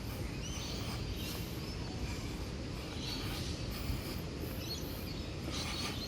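Birds chirping in short, scattered calls over a steady low rumble of outdoor background noise.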